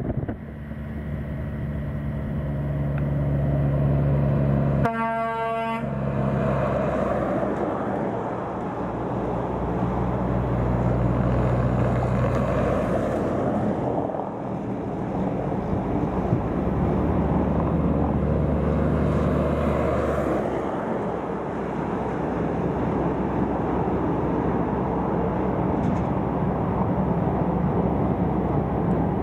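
Cattle semi-truck's diesel engine running, its note rising and falling as it travels, with one air-horn blast lasting about a second, about five seconds in.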